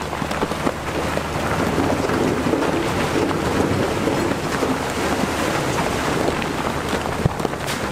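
Shantui bulldozer working: a steady low engine rumble under a dense, continuous crackle of earth and debris being pushed.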